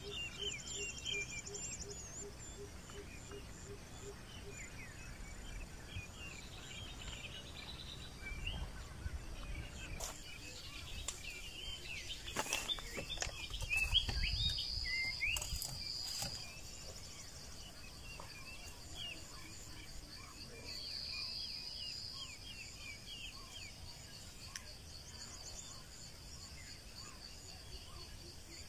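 Forest ambience: insects chirring steadily in a high pulsing pitch, with scattered bird calls. A few sharp knocks and scrapes come in the middle as a knife works on a green bamboo tube.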